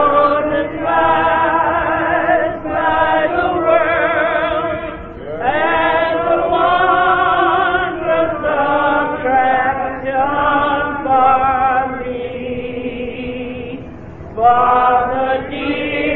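Church gospel singing: voices holding long, wavering notes in phrases, with short breaks between phrases.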